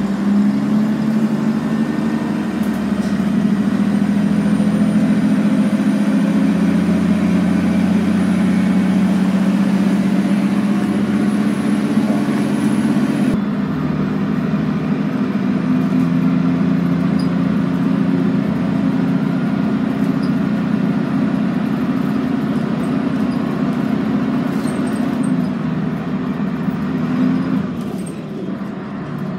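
Scania N113CRB city bus heard from inside the passenger cabin while under way: the diesel engine's steady low drone, easing off near the end.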